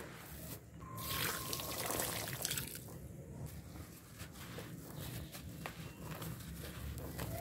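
Grainy red dirt and a wet block of red mud crumbled by hand into a tub of muddy water: gritty crunching and crumbling, with wet trickling and dripping. The noise swells for a second or so early on and then goes on as a steady crackle.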